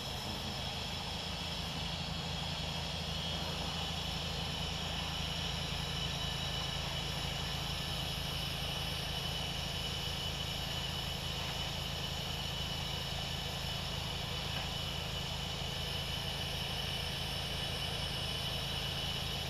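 Pressure washer engine running steadily under load while the rinse water jets from the spray wand, with a constant hiss of spray over the engine's low pulsing.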